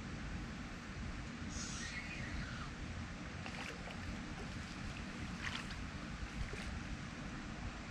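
Steady low rumble of wind buffeting the microphone outdoors, with a few faint short noises, one about a second and a half in and others a few seconds later.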